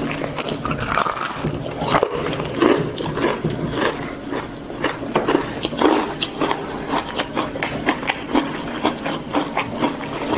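Close-miked chewing of breaded fried chicken: a fast, irregular run of wet mouth smacks and crunchy clicks.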